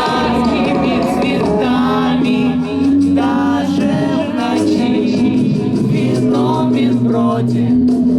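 Live band playing a song with sung vocals over a steady bass line and drums, recorded at a club concert.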